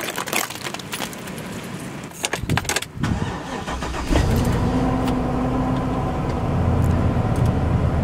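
Keys jangling in the ignition, then a Chevrolet pickup truck's engine cranking and catching about three seconds in, running steadily afterwards: a cold start in freezing weather to warm the truck up.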